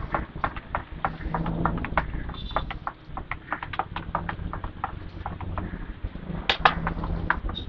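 Metal spoon clinking and scraping against a stainless-steel bowl as cornflour is stirred into a batter of dissolved milk powder: quick, irregular clicks, several a second.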